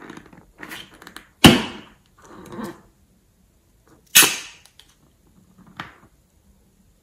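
Hands handling a liquid-filled rubber balloon, with two sharp snaps, about a second and a half in and about four seconds in, and softer rubbery rustles between them. The second snap comes as a needle is pushed into the balloon's tip to let the liquid out.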